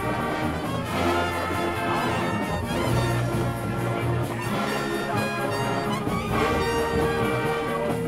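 Marching band playing, with trumpets and trombones carrying a loud brass tune and a note held near the end.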